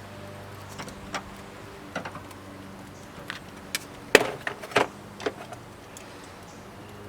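Scattered sharp clicks and knocks of a battery clamp and cable ends being handled and fitted together. The clicks come closest together and loudest a little past the middle, over a steady low hum.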